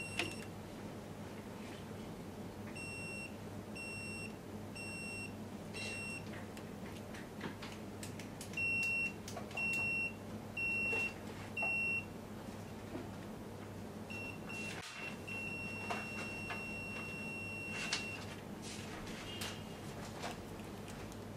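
Pen-type phase rotation and voltage tester (CUSTOM VP-01U) beeping as its tip is touched in turn to the insulated phase wires of a three-phase supply, checked in reverse order. It gives four short high beeps, then four louder ones, then a few short beeps and a long steady tone of about three seconds. A faint steady hum and light taps sit underneath.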